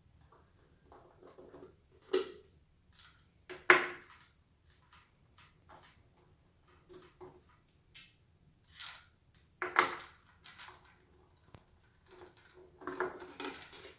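Scattered clicks, knocks and light rattles of tools and parts being handled during a repair, with sharper knocks about two and four seconds in and near the middle, and a busier stretch of handling near the end.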